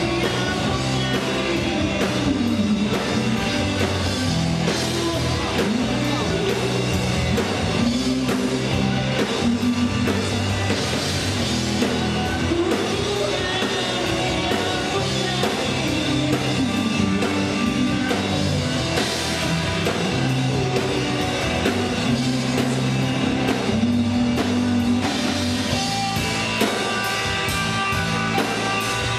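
Rock music with drum kit, guitar and a singing voice, playing steadily.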